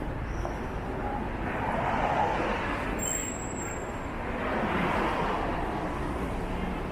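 City street traffic: cars passing on the road beside the sidewalk, the noise swelling twice as vehicles go by, over a steady urban rumble.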